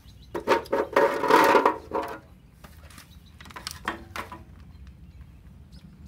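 Lawn mower recoil starter being worked by hand: a loud rattling whir of the rope and pulley for about a second and a half, then a few lighter clicks.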